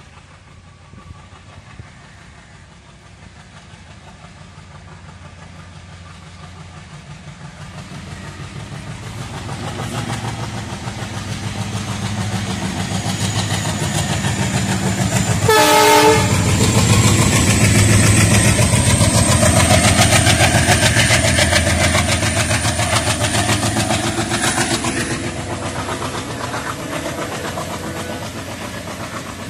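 ALCo WDG3A diesel locomotive hauling a passenger train approaches and passes, its engine's low throbbing rumble growing steadily louder. A short horn blast sounds about halfway through, and a thin high whine rises slowly through the loudest part. The rhythmic rattle of the coaches' wheels then runs on as the train goes by, easing off slightly near the end.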